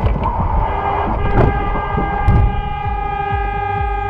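A car horn blown in one long, steady blast of about four seconds, starting just under a second in, over the low rumble of driving on a wet road.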